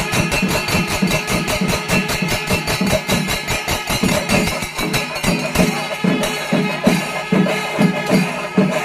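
Chenda melam: a Kerala temple ensemble of chenda drums beaten in fast, dense strokes, with the ringing of ilathalam cymbals over them.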